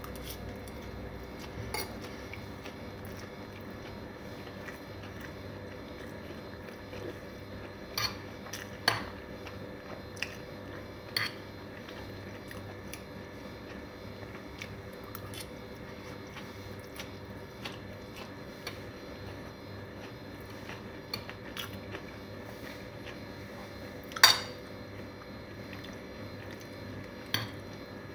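A fork clinking and scraping against a plate while noodles are twirled up, a handful of sharp clinks scattered through, the loudest about 24 seconds in, with quiet chewing between, over a steady low hum.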